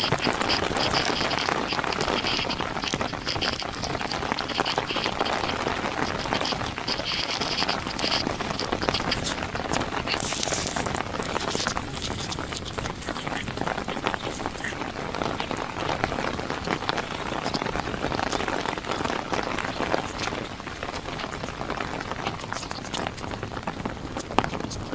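Heavy monsoon rain falling on a moving car's windshield and body: a steady hiss with many small drop ticks throughout.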